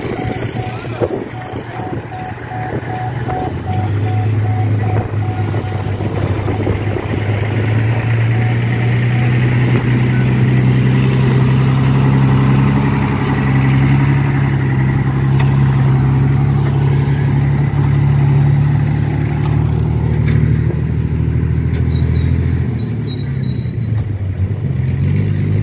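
Large truck's diesel engine running close by, a steady heavy note that rises a little about ten seconds in and eases off near the end.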